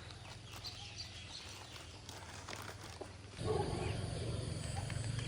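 Animal calls and bird chirps, faint at first; about three seconds in, a louder low steady background comes in abruptly.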